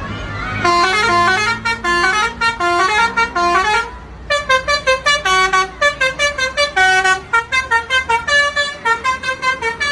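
Tour bus's Basuri telolet horn playing a fast melody of short stepping notes, breaking off briefly about four seconds in, then playing again in quick pulsing notes.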